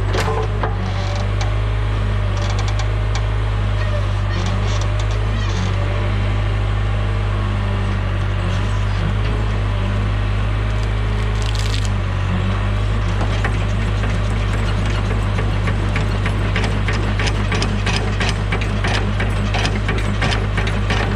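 John Deere 410 backhoe's diesel engine running steadily while wood cracks and splinters. Toward the end comes a rapid rattling clatter.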